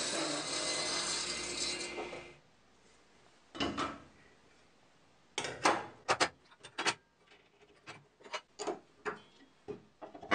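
Table saw ripping a white oak board, stopping abruptly after about two seconds. This is followed by a scattered series of short metal clinks and knocks as saw blades, the arbor nut and the throat insert are handled during a blade change.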